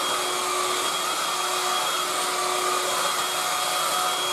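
Tefal Dual Force TY6751 cordless stick vacuum running steadily at its higher power setting: an even, high motor whine over a rush of air.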